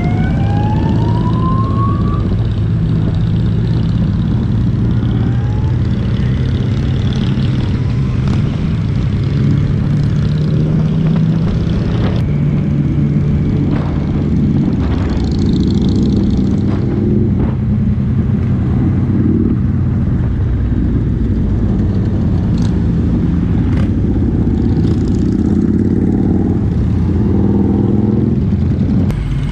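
Yamaha MT-09's inline three-cylinder engine running steadily at moderate road speed, with other motorcycles of the group close by. The engine note rises once in the first couple of seconds, and a few brief clicks come through the middle.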